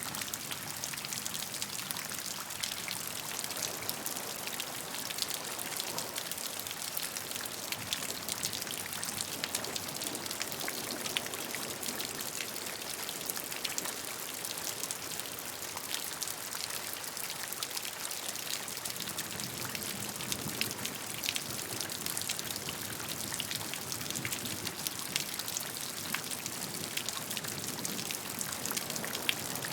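Steady rainfall with many close, distinct raindrop ticks spattering on a surface, a dense even patter with no let-up.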